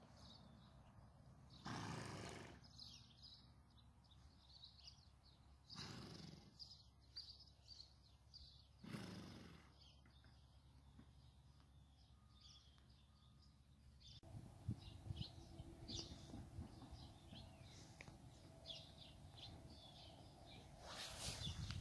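Near silence: faint outdoor ambience with scattered small bird chirps and four short rushing bursts of noise spread through.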